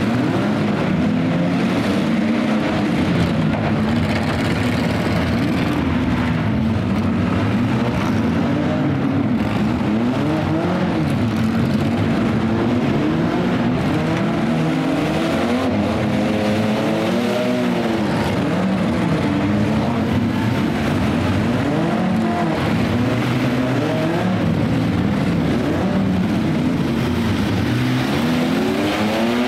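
Several demolition derby cars and minivans revving their engines at once. The engine pitches climb and fall again and again, overlapping throughout.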